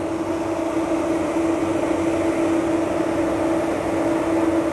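Delta PAG brushless electric radiator cooling fan running steadily at operating speed, a constant hum over a rush of moving air. It is drawing about 12.5 amps and moving around 3,000 CFM.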